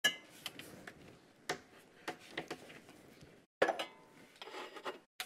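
Jars and containers clinking and knocking against each other and the shelf as they are moved about in a kitchen cupboard, in short irregular knocks with a few louder clinks.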